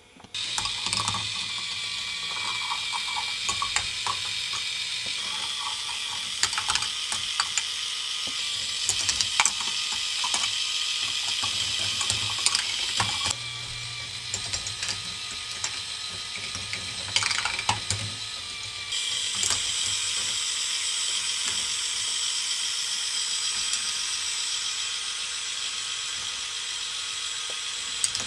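K'nex ball machine running: its lifts clatter and ratchet steadily while plastic balls roll and click along the tracks. The running noise drops about halfway through and picks up again a few seconds later.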